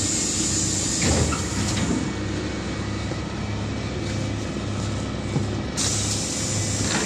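A LiAZ-5292.67 city bus with a compressed-natural-gas engine, heard from inside the passenger cabin, its engine running steadily while the bus stands, then starting to move off. A hiss comes in near the end.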